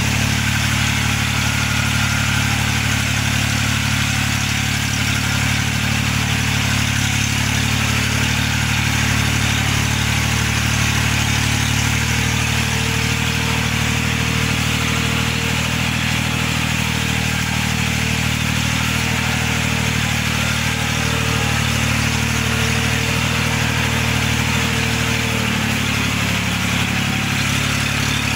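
Small tractor engine running steadily while pulling a rear-mounted implement through the soil, its note shifting slightly a couple of times.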